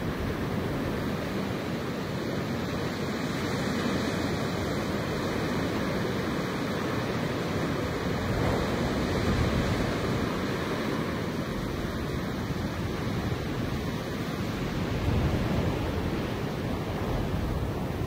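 Wind blowing through grass: a steady rushing with no tones, swelling in gusts about halfway through and again near the end.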